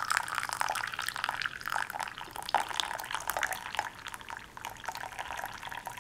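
Tea poured in a thin stream from a glass teapot into a porcelain teacup, trickling and splashing steadily as the cup fills.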